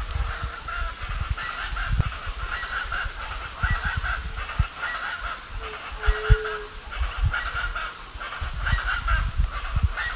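A flock of birds calling continuously in a dense chorus of overlapping, harsh honking calls, with one brief whistled note about six seconds in and frequent low thuds underneath.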